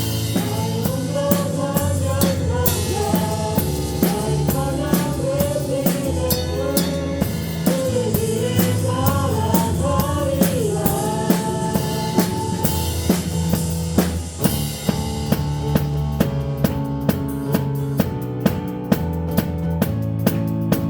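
Live praise band with a drum kit keeping a steady beat of kick, snare and cymbal hits. A gliding melody line runs over the band for the first half, then fades about two-thirds in while the drums carry on.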